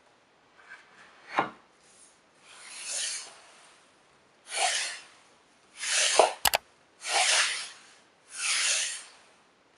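Wooden spline jig sled slid back and forth over a router table, wood rubbing on wood in five strokes. A knock about a second in and a sharp double click about two-thirds through.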